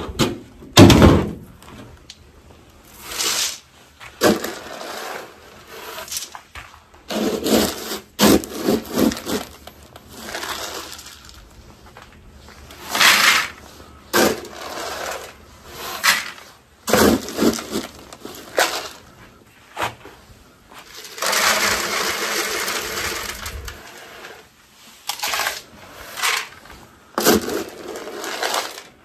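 Livestock feed pellets being scooped out of a galvanized metal tub and poured into buckets: a series of separate rattling pours, scrapes and knocks, with one longer stretch of rattling about three quarters of the way through.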